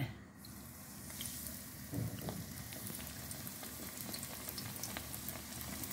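Hot oil sizzling around a triangle of leavened bread dough frying in a shallow pan, a steady hiss that sets in within the first second as the dough goes in. A soft knock about two seconds in.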